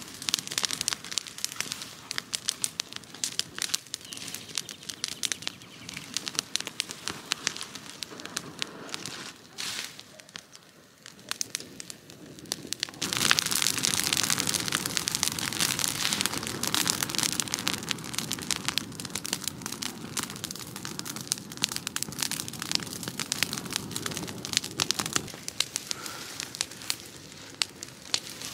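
Open bonfire of cut olive branches crackling with many sharp pops. About halfway through it grows louder and busier.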